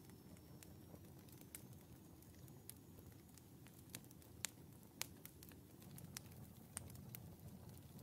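Split firewood logs burning in the open firebox of a wood stove, crackling faintly with scattered sharp pops. The two loudest pops come about four and a half and five seconds in, over a low steady rumble.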